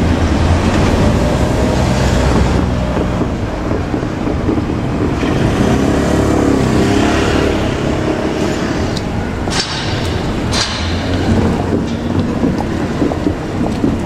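KiHa 47 diesel railcar running along the track: the steady low drone of its diesel engine mixed with the rumble of wheels on rail. Two sharp clacks come about a second apart roughly ten seconds in.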